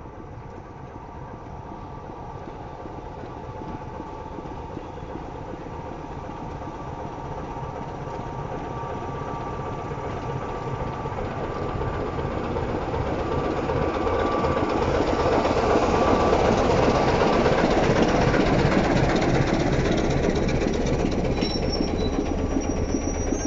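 British Rail Class 25 diesel locomotive with its Sulzer six-cylinder engine, arriving and passing close by. It grows steadily louder to a peak about two-thirds of the way through, and then its coaches roll past. A few brief high squeals come near the end.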